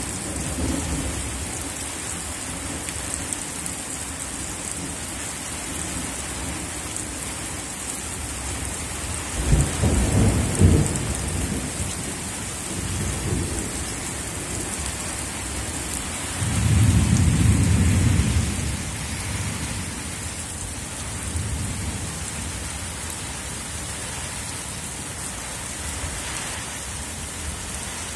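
Steady rain falling, with thunder rumbling twice: an uneven peal about ten seconds in and a longer, smoother roll a few seconds later.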